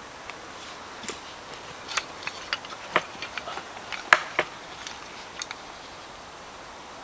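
Wood fire crackling in a small stove: irregular sharp pops and cracks, thickest between about two and four and a half seconds in, the loudest about four seconds in.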